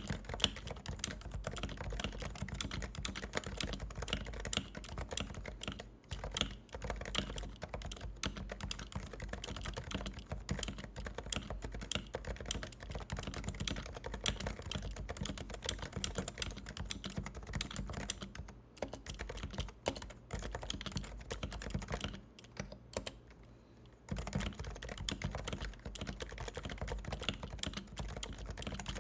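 Continuous fast typing on a Topre Realforce 87USB silent-model keyboard, its electro-capacitive key switches giving soft, muffled clicks. There are a few short pauses and a longer pause about two-thirds of the way through.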